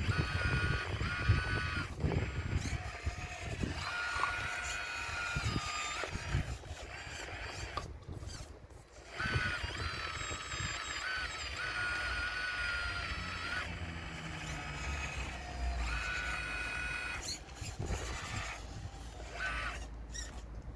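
Radio-controlled model excavator working, its motors giving a high whine that starts and stops in short runs as the arm and bucket move. Low knocks and rumbles of stones, loudest in the first couple of seconds.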